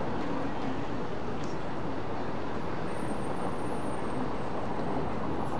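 Steady city street ambience, mostly the even noise of road traffic.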